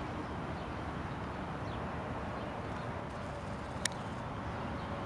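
Steady outdoor background noise with no clear rhythm, and a single sharp click a little under four seconds in.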